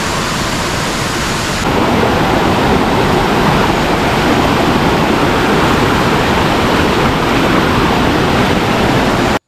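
Steady rushing noise of water, stepping up louder about two seconds in and cutting off suddenly just before the end.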